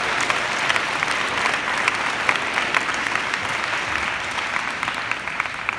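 Audience clapping: a dense patter of many hands that slowly dies down toward the end.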